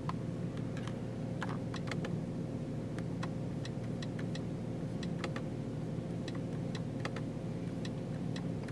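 Light plastic clicks of steering-wheel control buttons being pressed, irregular, roughly two a second, over a steady low hum in the car's cabin.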